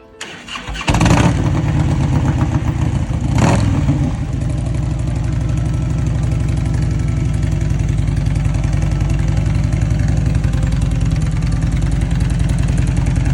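Harley-Davidson Road King's V-twin engine starting, catching about a second in, revved briefly about three and a half seconds in, then idling steadily with an even, rhythmic beat.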